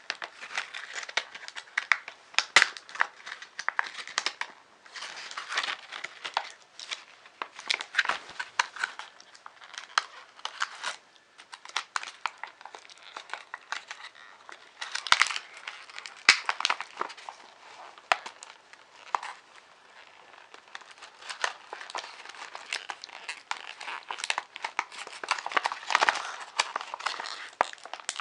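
Packaging being handled and unpacked, crinkling and crackling in irregular bursts with short pauses.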